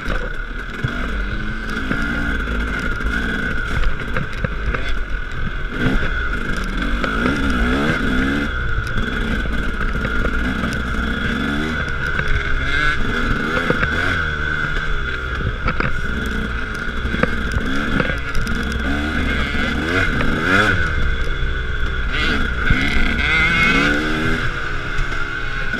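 KTM 300 two-stroke dirt bike engine, close up, revving up and down again and again as the bike is ridden along a rough bush trail. Short knocks and rattles from the bike over the ground run through it.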